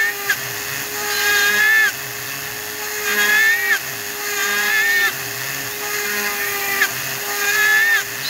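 Handheld rotary tool with a small drill bit running steadily while it cuts tread grooves into a small model tire. About every second and a half to two seconds a louder, higher whine rises over the motor hum for under a second, then drops off sharply as each groove stroke ends.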